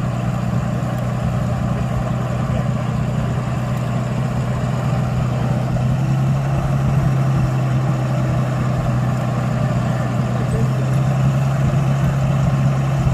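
Old crane truck's engine idling steadily with a low, even hum, getting slightly louder about six seconds in.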